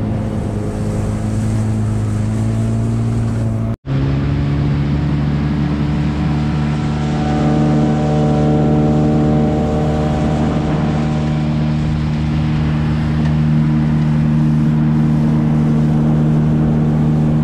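Gladiator 9.9 hp outboard motor running steadily under way. It cuts out for a moment about four seconds in, then carries on at a higher pitch.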